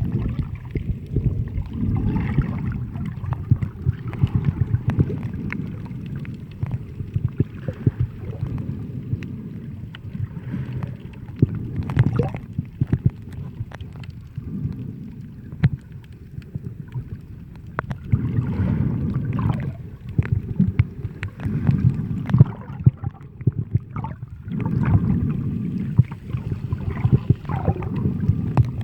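Sea water sloshing and gurgling around the microphone, muffled, with many small clicks and pops; it swells and eases every few seconds.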